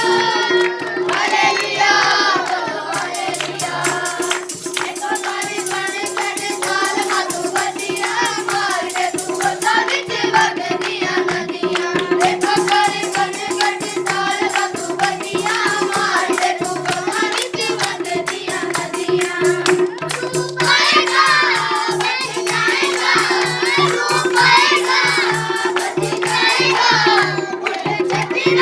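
A group of children and women singing a worship song together, accompanied by tabla and hand clapping.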